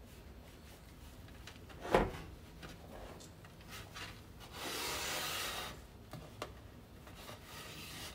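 Crumbly strawberry crunch topping being packed by hand onto the sides of a frosted cake on a wooden board: soft rubbing and crumbs scattering. There is a single thump about two seconds in, and a longer rustling scrape about halfway through as a hand scoops crumbs from the metal bowl.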